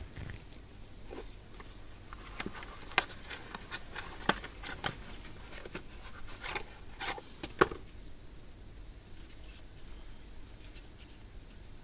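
A small cardboard parts box being opened by gloved hands and a plastic-cased CDI ignition unit slid out of it: scattered taps, scrapes and crinkly rustles, with a few sharper clicks, dying down to faint handling near the end.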